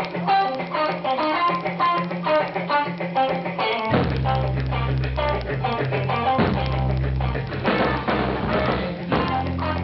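Live rock band playing: fast, rapid-fire electric guitar lines over bass. About four seconds in, the bass gets heavier and the drum kit hits in.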